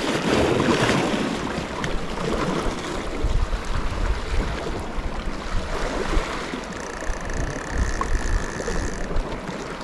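Wind buffeting the microphone over the wash of sea waves against the rocks, with gusts of low rumble.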